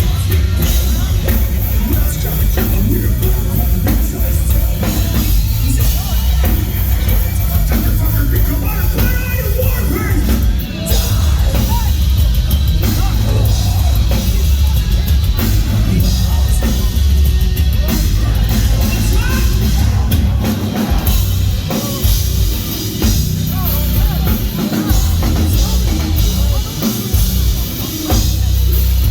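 Heavy metal band playing live, loud and bass-heavy, with a pounding drum kit and distorted guitars.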